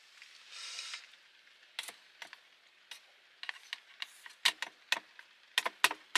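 Wooden chopsticks clicking and scraping against a small metal camping frying pan as scrambled egg and sausage is pushed out onto rice in a camping pot. Scattered sharp clicks and knocks come thickest and loudest in the last two seconds.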